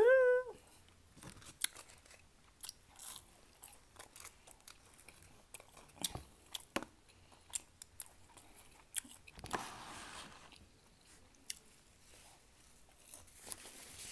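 Close-miked chewing of a McDonald's chicken nugget, with soft crunches and wet mouth clicks scattered throughout. A short rising "mm" hum opens it, and the chewing is denser for about a second near the ten-second mark.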